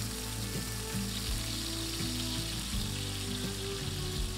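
Salmon fillets sizzling as they fry in hot oil in a nonstick pan, a steady hiss, with background music playing underneath.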